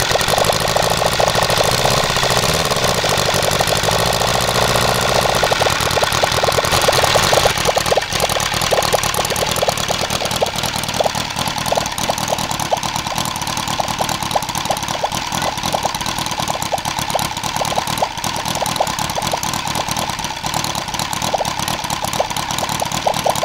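OS Pegasus FF-240 four-cylinder four-stroke boxer model aircraft engine running steadily and turning its propeller, with a rapid even firing beat. Its speed and level drop a little about seven seconds in, and it runs on at that lower setting.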